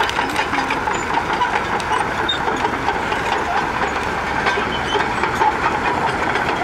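Caterpillar D6H XL bulldozer crawling over landfill debris: steel tracks clanking and the engine running under a dense, steady crackle of wood, cardboard and scrap being crushed and pushed.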